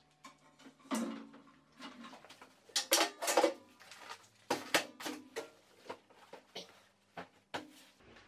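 Tools and accessories being hung and set down on a steel-tube welding cart: a string of irregular metal knocks and clatters, some ringing briefly.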